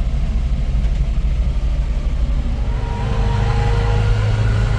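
A motor vehicle's engine running with a steady low rumble. A steadier engine note comes in about halfway through.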